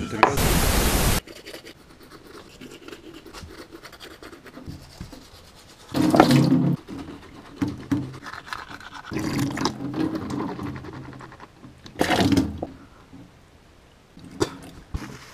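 Washing at a bathroom sink: a sharp hiss about a second long at the very start, then three short rinsing sounds a few seconds apart.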